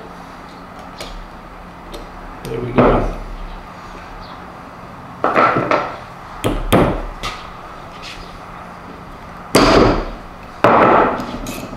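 A steel Allen wrench knocking and clinking against the cast-iron body of a Wilton bullet vise as it is worked down into a bore. There are about five separate sharp knocks, with a low steady hum underneath.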